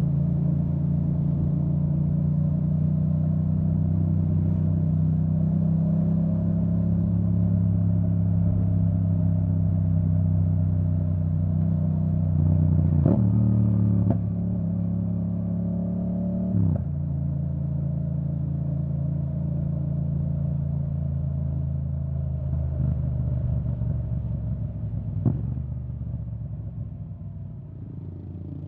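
A 2017 Yamaha MT-07's parallel-twin engine running under way through an Akrapovic full titanium exhaust with the dB killer removed. The engine note steps abruptly three times around the middle, and the sound fades away near the end.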